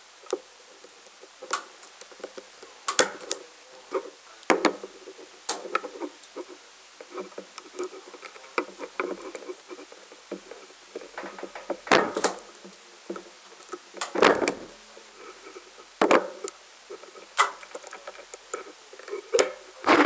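Irregular plastic clicks, taps and scraping from hands fitting a red Cat6 keystone jack into a grey plastic holder and working a yellow Ethernet cable's wires into it, with a few louder knocks scattered through.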